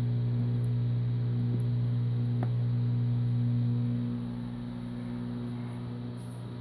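Steady low electric hum of a running machine, with one light click about two and a half seconds in. The hum drops in level about four seconds in.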